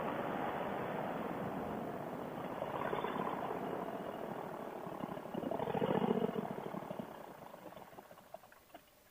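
Steady rush of a four-stroke paramotor engine and wind noise in flight, with a brief louder swell about six seconds in, then fading away over the last few seconds.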